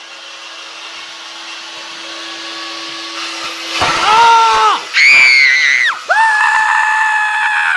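Circular saw mounted on a CNC machine cutting plywood: a rising cutting noise, then the motor whine drops sharply and recovers several times as the blade binds in the panel, which lifts and splits. Near the end the motor's pitch falls away as it winds down.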